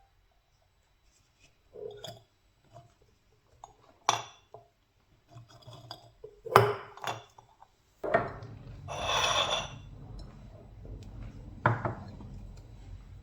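A few sharp clinks and knocks of hard objects being handled, like glassware or dishes set down, with a short rushing, rubbing sound about nine seconds in.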